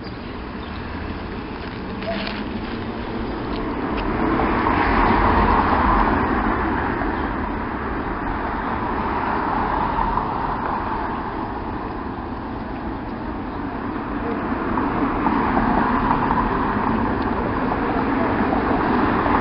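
Road traffic passing: a steady rush of vehicle noise that swells and fades about five seconds in, then builds again over the last few seconds.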